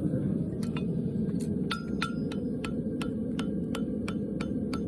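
Farrier's hammer striking a horseshoe on an anvil, about three ringing blows a second, over a steady low rushing noise.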